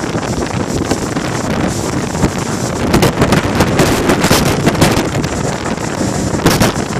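Typhoon-strength wind buffeting the microphone: loud, continuous wind noise that surges irregularly in gusts.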